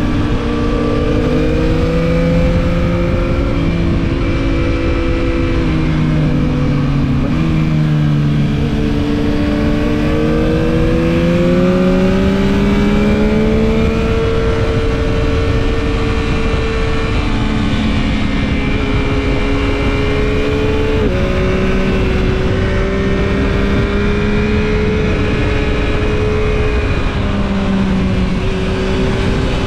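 Yamaha MT-09 SP's inline-three engine running under way, its note rising and falling with the throttle, with sudden pitch steps about 7 and 21 seconds in. Wind rush on the microphone runs under it.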